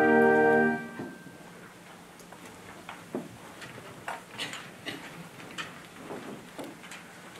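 Choir, orchestra and organ holding a final chord that is released about a second in. Then a hushed pause broken by scattered small clicks and rustles.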